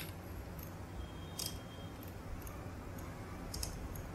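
A few faint, sharp clicks of computer input, spread about a second apart, over a low steady hum.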